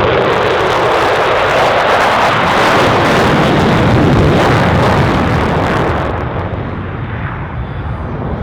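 Jet roar of a USAF Thunderbirds F-16 fighter passing the crowd: it swells to a peak about four seconds in, drops in pitch as the jet goes by, and fades over the last couple of seconds.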